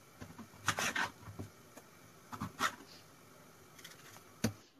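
Knife cutting a red bell pepper on a cutting board: a few separate short cuts with pauses between them, the loudest about a second in and a last sharp one near the end.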